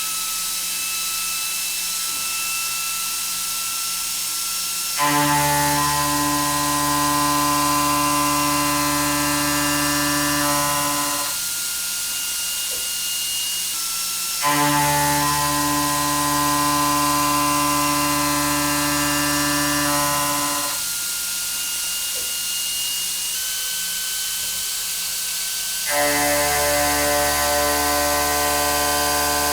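Metal-cutting machine tool working through repeated cuts: a steady high whine runs throughout, and three times a much louder steady pitched tone with many overtones sets in abruptly, holds for about six seconds, then drops back to the whine, the last one starting near the end.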